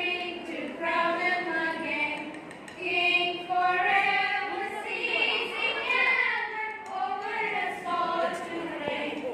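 A group of voices singing a song together with long held notes, unaccompanied.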